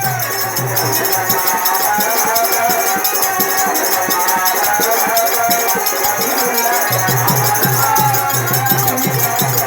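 Devotional music interlude without singing: a wavering melody over a steady, rattling shaker-like percussion. The low drum beat drops out about a second in and comes back about seven seconds in.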